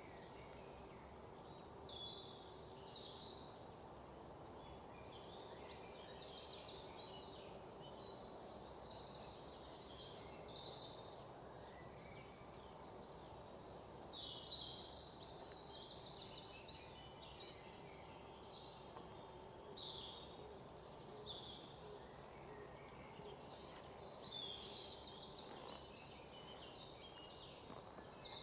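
Forest ambience: several small birds chirping and singing rapid trills throughout, over a faint, steady low background hiss.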